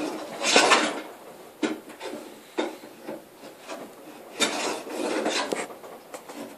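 Record 050 combination plane cutting a bead in oak: a scraping stroke about half a second in and a longer one after about four seconds, with a few light knocks between them.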